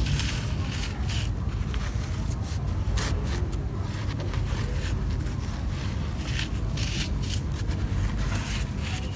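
Dry red soil blocks being crumbled and rubbed by hand: irregular gritty crunches and scrapes, over a steady low rumble.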